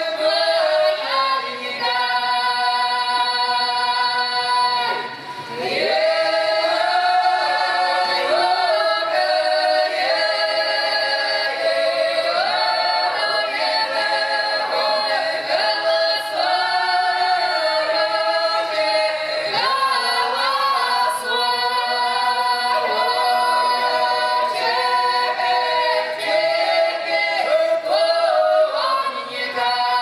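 Unaccompanied mostly women's folk choir singing a drawn-out southern Russian village song (protyazhnaya) from the Voronezh region in several parts. The voices hold long notes with sliding ornaments, and there is a brief dip about five seconds in as a new phrase starts.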